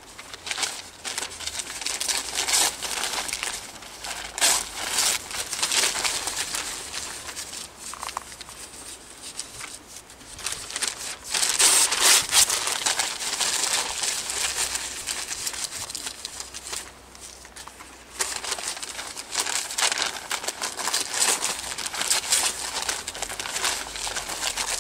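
Paper being torn and crumpled by hand, in irregular rustling bursts, the loudest about halfway through.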